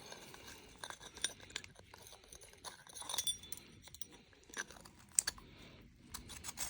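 Faint, irregular clicks and small metallic clinks of a tattoo pen's parts being handled and fitted together as its needle bar is worked back into the housing.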